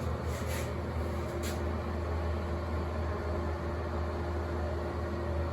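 Steady low mechanical hum with an even hiss underneath, and two faint clicks about half a second and a second and a half in.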